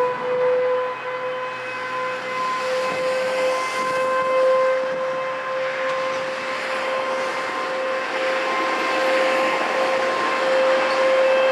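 ASC T-128 outdoor warning siren sounding a single steady tone, heard from a long way off, its pitch creeping slightly higher over the first few seconds as it finishes winding up.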